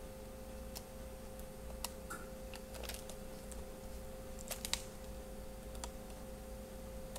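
A few faint, sharp clicks and taps of plastic and metal as a replacement laptop LCD panel is handled and its display cable connector is fitted, the loudest a quick pair about four and a half seconds in. Under them runs a steady faint hum.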